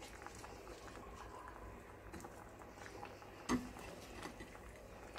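Faint scattered ticks and light pattering as pieces of green onion are laid into a stainless steel pan heaped with vegetables, with one sharper knock about three and a half seconds in.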